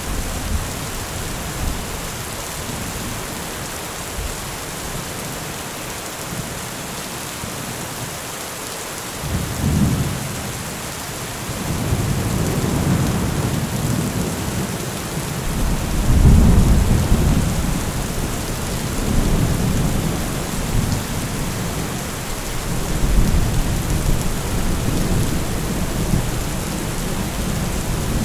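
Heavy rain falling in a steady hiss, with thunder rolling in about a third of the way in and rumbling on in several long swells, the loudest a little past the middle.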